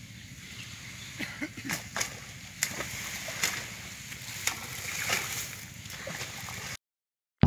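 Fish splashing at a pond's surface as they leap inside an encircling net: a string of short, sharp splashes roughly a second apart over a steady outdoor hiss. The sound cuts off suddenly shortly before the end.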